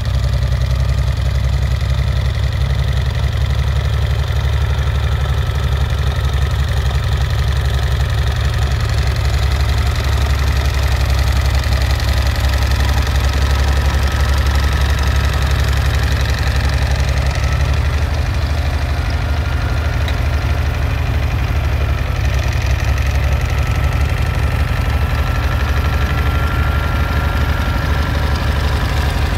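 1964 Farmall 706 tractor's engine running steadily.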